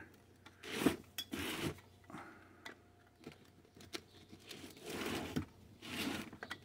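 Flat-blade screwdriver scraping and clicking against the fare box's metal tower as its top is pried apart at a gasket seam that is stuck: a few short scrapes with light clicks between them.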